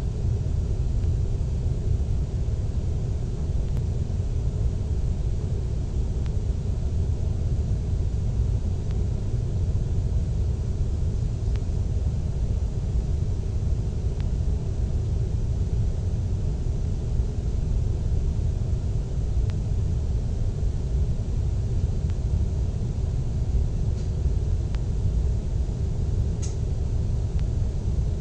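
Steady low rumble of jet airliner cabin noise in cruise, the engines and rushing air heard through the fuselage, with a few faint clicks.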